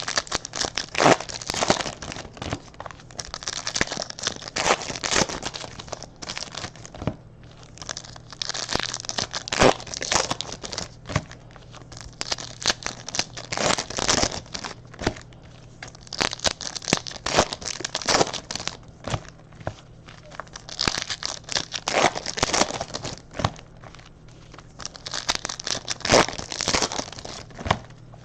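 Trading-card pack wrappers being torn open and crinkled by hand in irregular bursts of crackling, with short pauses in between.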